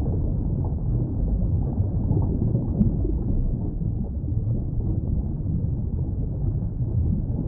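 Underwater ambience: a steady, muffled low rumble and churn with nothing in the higher range, as heard beneath the water's surface.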